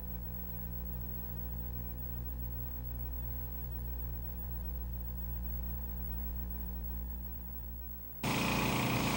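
Steady low hum made of several unchanging tones. About eight seconds in it cuts off abruptly to a louder, hissy background.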